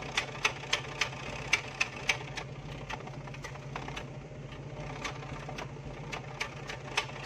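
Petrol jeep engine idling after a cold start, heard at the exhaust tailpipe: a steady low hum with sharp irregular ticks, a few a second. The owner puts its fluttering down to a leak somewhere in the silencer.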